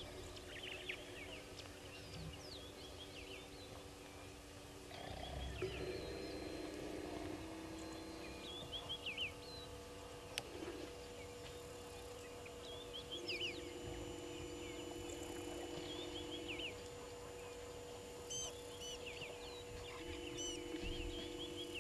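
Wild birds chirping and calling in short, repeated phrases, over a steady low hum that comes and goes several times.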